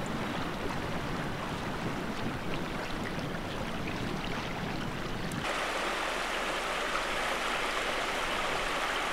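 Flowing water rushing steadily, with a deep rumble under it. About five seconds in it cuts abruptly to a small creek running over stones, a steadier and brighter rush without the rumble.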